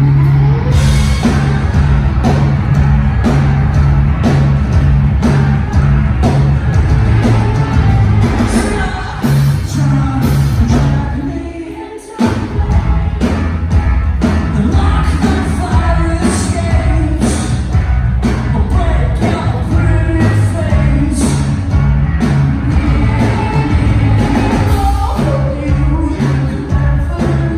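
Live rock band playing loud through a concert hall's PA: electric bass, drum kit and lead vocals, heard from the audience. The music drops out briefly about twelve seconds in, then the full band comes back in.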